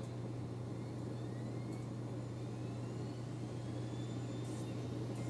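Mac mini's slot-loading DVD drive spinning up the boot disc: a faint rising whine over a steady low hum, with a few faint clicks near the end.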